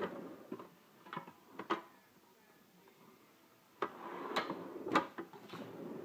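Drawer of a Lista steel tool cabinet being handled: a few light clicks, then a few seconds in a rougher sliding sound with several sharp metal clacks.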